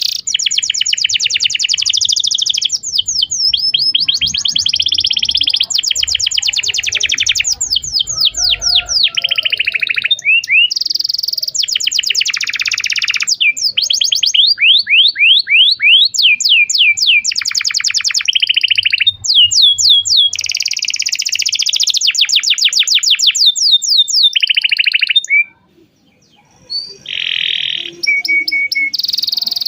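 Domestic canary singing a long, nearly unbroken song of rapid trills and rolls: runs of fast repeated notes, some sweeping up or down, changing phrase every second or two, with a short break near the end.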